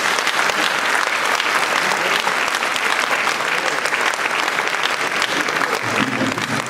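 Audience applauding: many hands clapping steadily in a large hall, with a man's voice starting up over it near the end.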